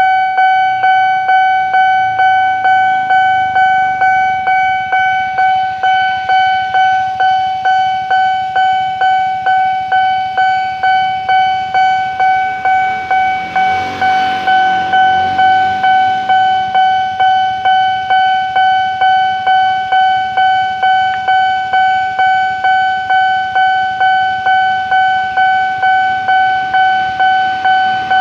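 Level-crossing warning bell ringing from a horn loudspeaker: a single ringing tone struck over and over, about one and a half strokes a second, steady throughout, signalling that a train is due. A brief rise of noise comes and goes about halfway through.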